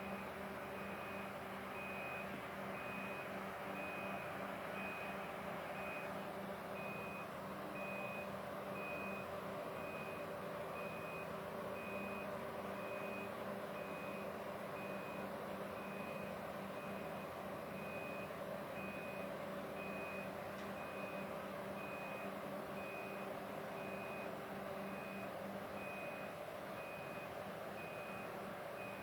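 A warning alarm on heavy machinery beeping steadily about once a second, over the steady running of big diesel engines.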